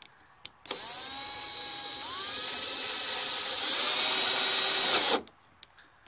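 A hand drill fitted with a step bit spins up and bores through the car's hood panel from underneath. Its motor whine steps up in pitch a couple of times and grows louder, then stops abruptly about five seconds in as the bit goes through.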